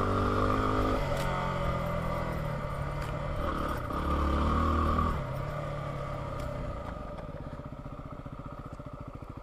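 Yamaha WR250R's single-cylinder four-stroke engine under way on a dirt trail, revving up and down with the throttle for about five seconds. Then the rider eases off and the engine drops to a quieter, even putter at low revs.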